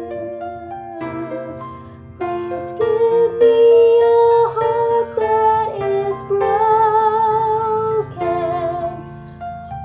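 Female soprano voice singing long held notes with vibrato over an instrumental accompaniment: the Soprano 2 part of a choir song. The voice comes in strongest about three seconds in and eases off near the end.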